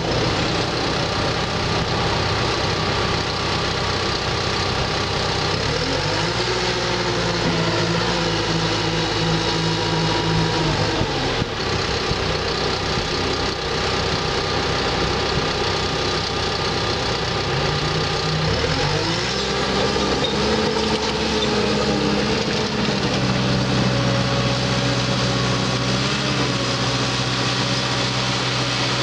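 Bulldozer's diesel engine running under load, its engine speed rising and falling a few times as the machine works over a hill.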